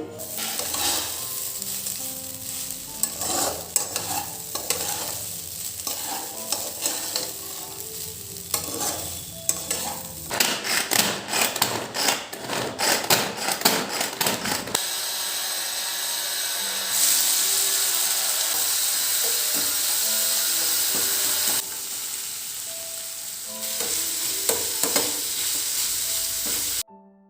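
Household work sounds: irregular knocks and scraping, then a fast run of quick strokes, then a steady hiss that gets louder partway through and cuts off suddenly near the end.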